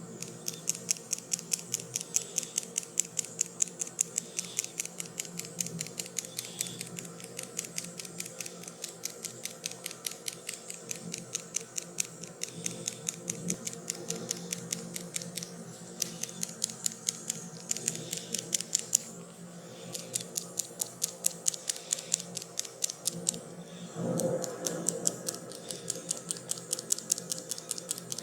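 Rapid, even clicking close to the microphone, about five clicks a second, in runs of a few seconds broken by short pauses.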